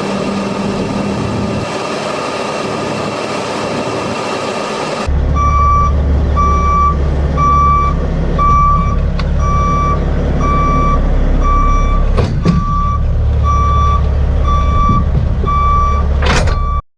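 Semi-truck backing up to hook onto a trailer: a reversing alarm beeping steadily about one and a half times a second over the low rumble of the diesel engine, which starts about five seconds in. A couple of short sharp knocks or hisses come near the end. Before the beeping there is only an even engine rumble.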